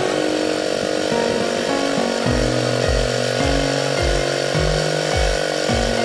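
Background electronic music: a buzzy synth bass line stepping from note to note, with a kick drum coming in about two seconds in at roughly two beats a second.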